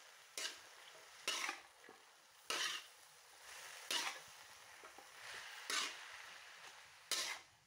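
Metal spatula scraping and tossing leafy greens in a wok, about six strokes a second or so apart, over a steady sizzle of stir-frying.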